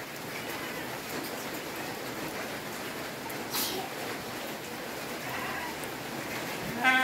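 Steady hiss of rain, with one brief sharp noise about halfway through. Just before the end a goat starts bleating.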